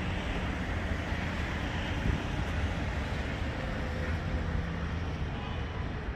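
Steady city street ambience: road traffic running continuously, with a deep rumble underneath.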